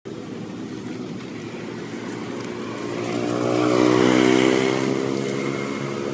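A motor vehicle's engine passing by, swelling to its loudest about four seconds in and then fading.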